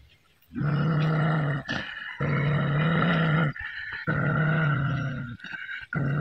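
Dog growling in three long, steady growls of about a second and a half each with short breaks, and a fourth starting near the end. It is a warning growl at its own reflection in a mirror.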